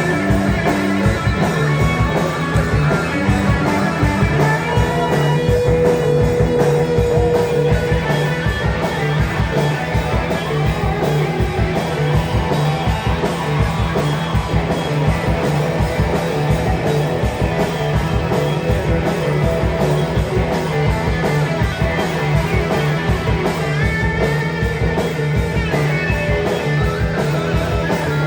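Live rock band playing: electric guitar over a steady low bass line and a fast, driving drum beat.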